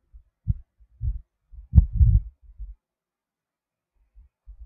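A handful of dull low thumps, irregular, from about half a second to nearly three seconds in, the loudest about two seconds in.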